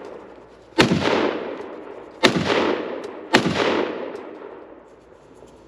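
Three gunshots, the second and third about a second apart, each followed by an echo that rolls away over about a second.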